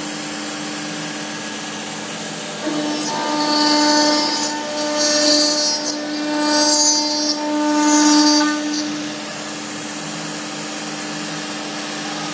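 CNC router spindle running with a steady whine while its end mill pockets a clamped aluminium plate. The cutting noise swells louder in several waves between about three and nine seconds in, then settles back.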